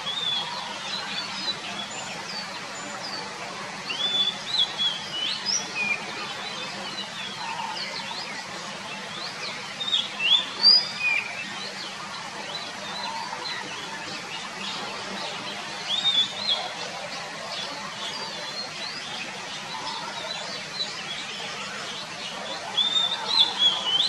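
Male oriental magpie-robin (kacer) singing: bursts of varied, sweeping whistled phrases about every six seconds, over a steady background hiss.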